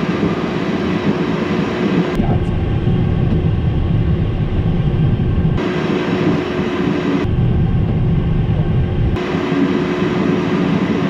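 Cockpit noise of an Embraer Phenom 100 rolling on the runway: a steady hum from its twin Pratt & Whitney Canada PW617F turbofans with a constant tone. A deeper rumble cuts in and out abruptly several times.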